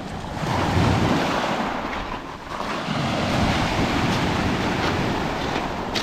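Small sea waves breaking and washing up a pebble beach, swelling about half a second in and again from about two and a half seconds on.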